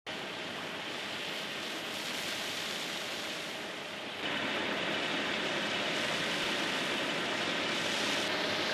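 Steady rushing noise of a tanker truck's high-pressure hose jet spraying water onto paving stones, with the truck's engine running to drive the pump. It gets louder a little over four seconds in.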